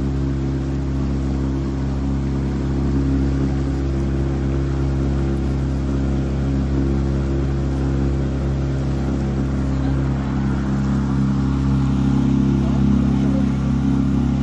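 Small motorboat's engine running steadily as the boat travels across the lake, over the rush of water churning in its wake.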